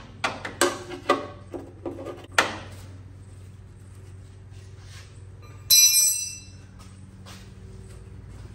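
A wrench working an oil pan drain plug loose: a quick series of sharp metal clicks and knocks over the first two seconds or so, over a steady low hum. About six seconds in comes one short, loud, bright metallic ring.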